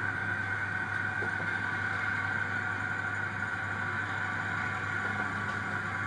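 00 gauge model railway locomotive running, a steady hum with a high whine that does not change.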